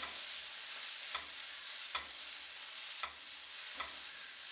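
Cooked cowpeas sizzling in a hot nonstick kadai as a spatula stirs them: a steady high hiss with a light scrape of the spatula about once a second.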